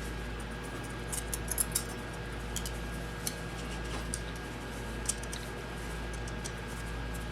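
Scattered light clicks and taps of small tools and metal parts being handled during motorcycle engine reassembly, several in quick succession about a second in, then single ones, over a steady low hum.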